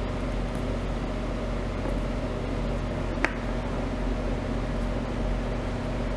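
A steady low background hum, like a fan or electrical drone, with one small sharp click about three seconds in.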